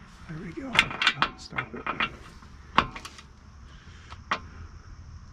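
Ratcheting wrench and socket on a steering rack mounting bolt: a string of irregular metallic clicks and clinks as the bolt is tightened toward 90 Nm.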